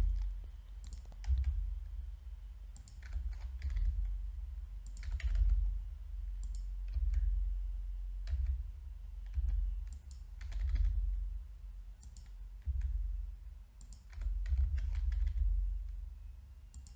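Computer keyboard keys and mouse buttons clicking in irregular, scattered presses, over a low rumble.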